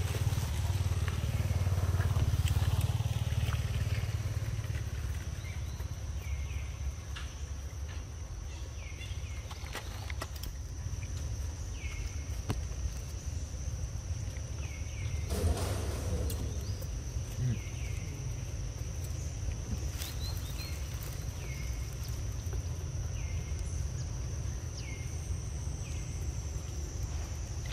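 Outdoor forest ambience: a steady high-pitched drone over a low rumble, with a short high chirp repeating about once a second from about a third of the way in, and one brief louder rustle about halfway through.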